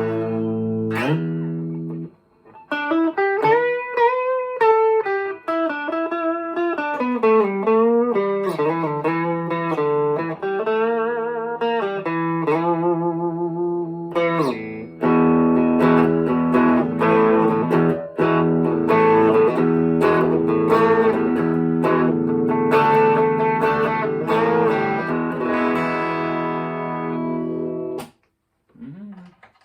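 Electric guitar played through a Boss Katana 50 MKII amp with an overdrive pedal on, giving a crunchy driven tone. A held chord gives way to a single-note lead line with string bends and vibrato. It then moves to ringing chords, which stop shortly before the end.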